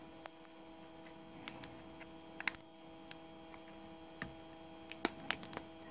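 Scattered light clicks and ticks as the small parts of a dismantled motorcycle regulator rectifier are handled and picked apart, with a small cluster of sharper clicks near the end. A faint steady hum sits underneath.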